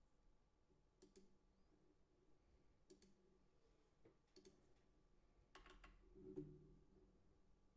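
Near silence broken by a few faint, scattered clicks of computer keys and mouse buttons, with a quick run of clicks and then a slightly louder, duller knock about six seconds in.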